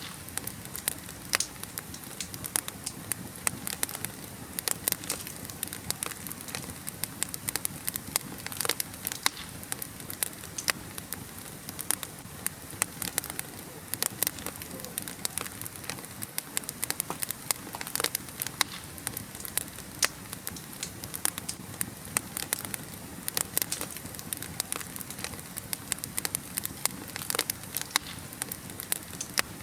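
Wood fire burning in a fireplace, crackling with frequent irregular sharp pops over a steady low hiss.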